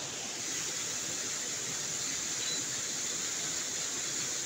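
Steady rush of a waterfall and its stream pouring over rocks.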